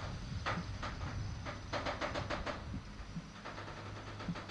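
Container freight train's flat wagons rolling past close by: a low rumble of the wheels on the rails, broken by repeated clacks in irregular clusters as the wheelsets pass.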